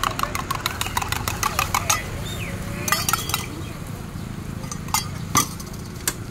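A metal spoon beating egg in a small stainless-steel cup: rapid, even clinking about five or six times a second for the first two seconds, then a few separate metallic clinks.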